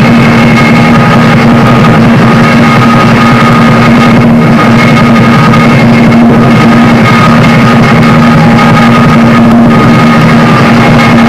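Lion dance percussion (drum, gongs and cymbals) playing continuously, recorded so loud that it is heavily distorted into a dense din with steady ringing tones.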